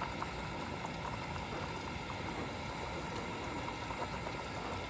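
Pasta in a pot of water at a rolling boil: steady bubbling with many small pops.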